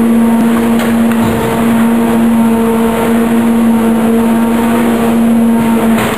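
Automatic wood shavings baler with form, fill and seal unit running, a loud steady machine drone with a constant hum and a few faint knocks.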